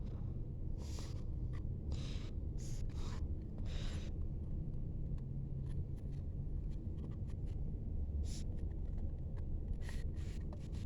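Scattered small clicks and short scraping rustles of a fire alarm device being handled, over a steady low hum.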